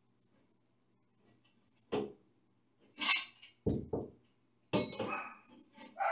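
Stainless steel grab bar clinking and knocking against ceramic wall tile as it is moved and held in place: a few separate clinks, the loudest about three seconds in.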